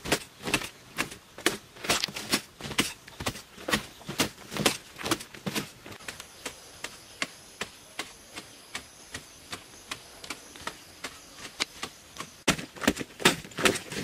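A hand digging tool striking and chipping into hard, dry earth over and over, about two blows a second. The blows are softer through the middle and sharper again near the end.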